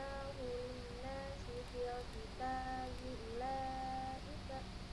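A female voice reciting Quranic verses in a melodic, drawn-out chant, with long, level held notes.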